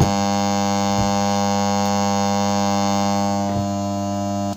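Abtus self-amplified loudspeaker putting out a loud, steady mains hum with a buzzy stack of overtones, with no input signal; it cuts off abruptly at the end. A 50 Hz hum like this is typical of a faulty power supply, a failed rectifier diode or filter capacitor feeding the amplifier.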